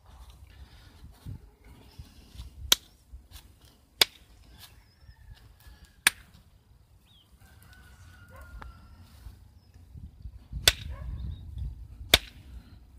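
Flint being struck with a hafted tool in flintknapping: five sharp, clicking strikes at uneven intervals, with a few fainter taps between them.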